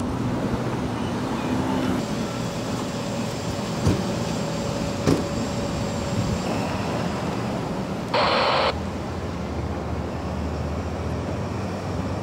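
Police vehicles' engines running with steady traffic hum on a city street. Two sharp knocks come about four and five seconds in, and a loud half-second blast a little after eight seconds.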